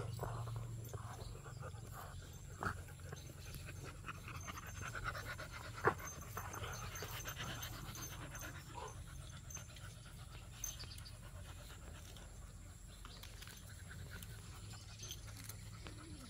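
Beagles panting close by as they crowd around, with two sharp taps, one about 3 seconds in and a louder one about 6 seconds in.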